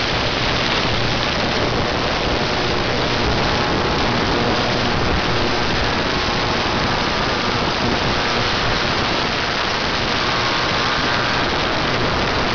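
Harbor Freight ultrasonic cleaner running a cleaning cycle, its heated Pine-Sol and water bath cavitating around a carburetor part: a steady, loud hiss with a faint low hum underneath.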